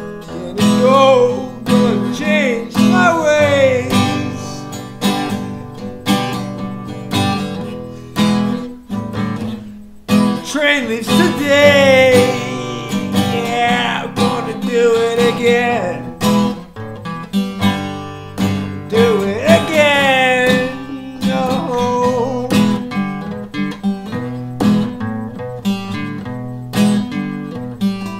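Acoustic guitar strummed steadily, with a man singing a melody over it in three drawn-out phrases.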